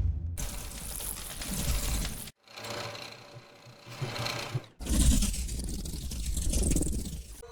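Three sound-effect presets from Krotos Studio played one after another, each a dense, noisy texture with a strong low end, split by short silent gaps about two and a half and five seconds in.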